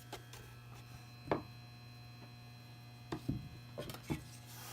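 Scattered light clicks and knocks, about six of them, as the plastic case of a Macintosh Hard Disk 20 external drive is handled and its feet are worked at to get them off, over a steady electrical hum.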